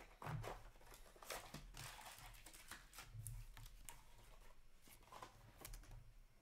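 Faint rustling and light clicks of trading cards being handled and flipped through by hand, card stock sliding against card.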